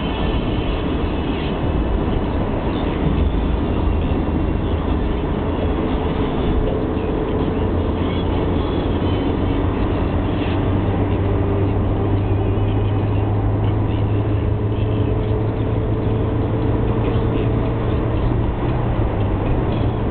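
Car cabin noise at motorway speed: a steady mix of engine hum, tyre roar and wind noise. The low engine drone grows stronger about halfway through and holds.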